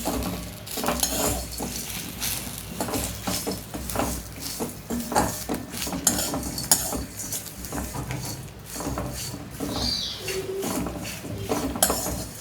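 Spatula scraping and knocking against a kadai again and again while curry leaves and whole spices are stirred and dry-roasted.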